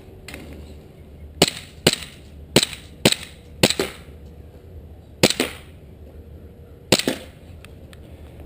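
KJW Sig Sauer P226 gas blowback airsoft pistol firing about seven shots in an uneven rhythm: five in quick succession, then two more spaced about a second and a half apart. Each shot is a sharp crack of gas and slide cycling.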